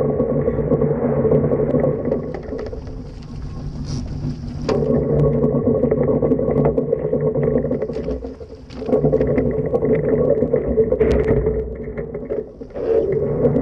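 Foiling Mach2 Moth dinghy at speed: a steady multi-pitched hum from the hydrofoils over a rush of wind and water. The hum weakens about three seconds in and drops out briefly past eight seconds and again near the end.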